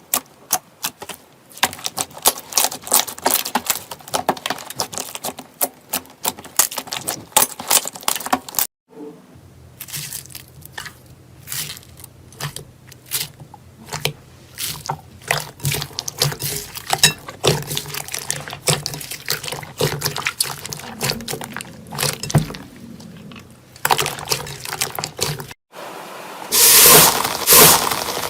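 Slime being squeezed, stretched and poked by hand, giving a rapid run of wet, sticky clicks and pops. It turns louder and more crackly near the end.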